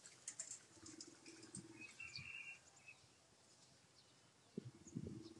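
Quiet outdoor ambience: scattered faint clicks, a short faint bird chirp about two seconds in, and a faint low steady hum coming in near the end.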